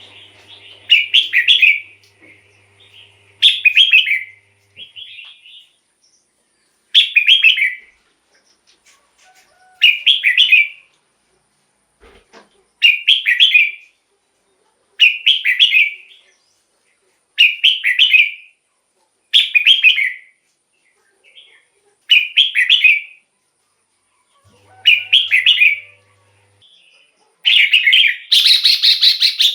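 Red-whiskered bulbul singing short, bright whistled phrases over and over, about one every two to three seconds, with a longer, fuller run of song near the end.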